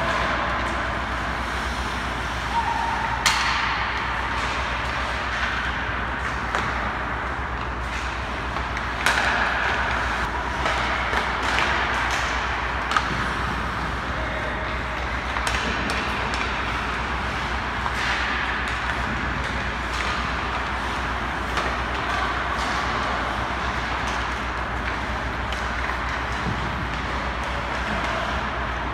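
Ice hockey practice sounds: skates scraping and sticks and pucks clattering, with a few sharp cracks of pucks striking sticks, pads or boards, the loudest about three and nine seconds in. A steady low hum runs underneath.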